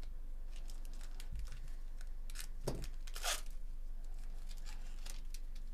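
Trading-card pack wrapper being torn open and crinkled: a run of crackles and rips, loudest about three seconds in.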